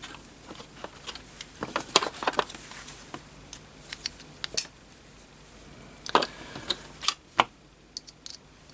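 Scattered light clicks and taps of small metal precision-screwdriver parts being handled, with a cluster of quick clicks about two seconds in and a few single sharper clicks later.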